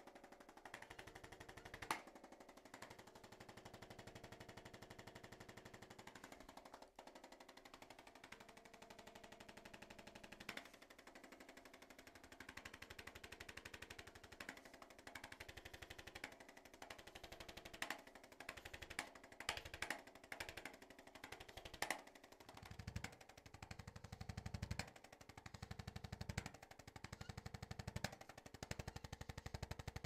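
Handheld electric chiropractic adjusting instrument tapping rapidly against a person's back in a fast, even stream of taps. From about 23 seconds in it comes in louder runs of a second or two with short breaks between them.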